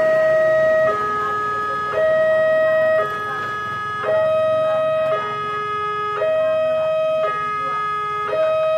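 Railway level-crossing warning alarm sounding for an approaching train: an electronic two-tone signal that switches between a higher and a lower note about once a second, over a steady higher tone.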